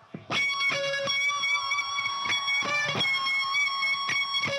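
Electric guitar opening a live rock arrangement: picked notes struck one after another and left ringing, starting about a third of a second in.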